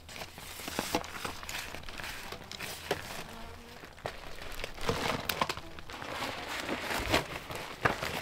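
Crinkling and rustling of a lightweight tent's stiff, thin fabric being handled as it is pitched on its centre pole, with many short clicks and crackles.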